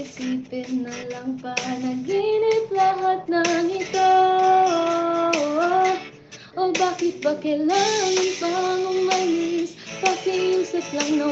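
A woman singing a slow song with music behind her, holding long notes and sliding between them, with a brief break about six seconds in.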